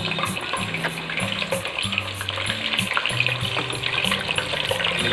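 Chicken pieces frying in hot desi ghee: steady sizzling and crackling.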